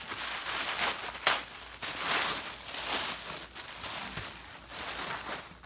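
Tissue paper rustling and crinkling in uneven bursts as it is unwrapped by hand, with a sharp crackle about a second in.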